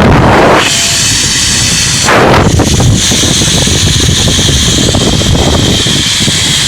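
Strong wind buffeting the microphone: loud, gusty low rumble with a steady high hiss.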